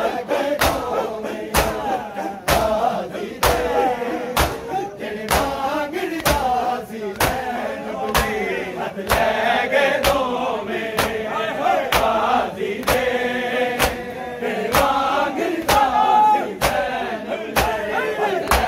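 Crowd of men chanting a noha (mourning lament) together, with their matam chest-beating as a sharp, sweeping slap about once a second.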